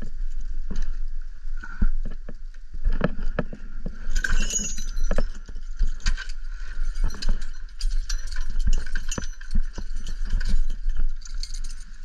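Wind buffeting the microphone with an uneven rumble, over irregular metal clinks and jingles from climbing spurs, harness rings and carabiners being strapped on and carried. There are clusters of jingling about four seconds in and again near the end.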